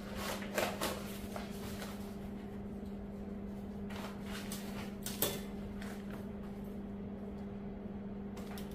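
A flower bouquet being unwrapped and handled: a few brief rustles of the wrapping paper and stems in the first second, and one each at about four and five seconds in. Under them runs a steady low hum.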